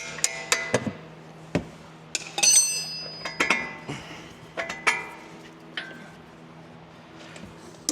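Metal tools knocking and clanking on the car's front suspension in sharp, irregular blows, each ringing briefly. A bright, high metallic ring comes about two and a half seconds in. The knocks thin out to a quieter stretch from about six to seven and a half seconds, then pick up again at the end.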